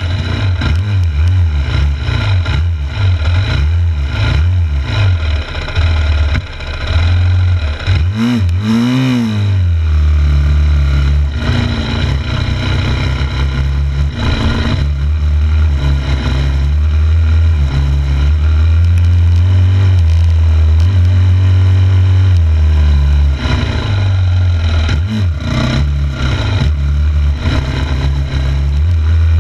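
2006 Yamaha YZ250F's single-cylinder four-stroke engine running under load, up close, its revs rising and falling with the throttle. About eight or nine seconds in the revs swing up sharply and drop back, and they hold steadier for several seconds past the middle.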